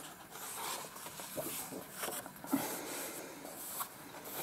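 Pages of a colouring book being turned by hand and pressed flat: faint paper rustling and brushing, with a few soft taps.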